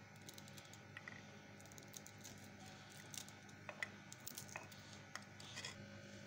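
Near silence: a faint steady electrical hum, with a few faint scattered clicks and ticks.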